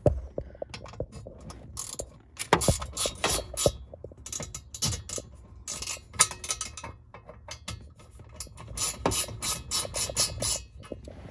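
Socket ratchet clicking in several quick runs as it backs out the screws holding a steering column cover.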